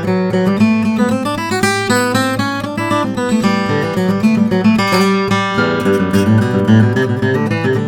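A 1950 Martin 000-28 acoustic guitar, Sitka spruce top with Brazilian rosewood back and sides, being played: picked notes change several times a second over ringing bass notes, with some strummed chords.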